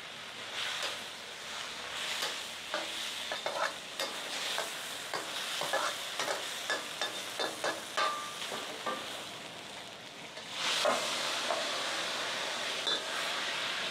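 Vegetables sizzling hard in a wok as a metal wok spatula scrapes and clinks against the pan in quick, irregular strokes. About three-quarters of the way through, the sizzle and scraping grow louder as the wok is tipped and the food is scraped out into a steel bowl.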